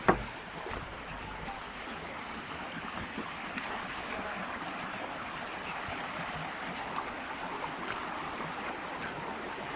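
Steady rushing of water from a waterfall and the rocky stream below it. A single sharp knock right at the start is the loudest sound.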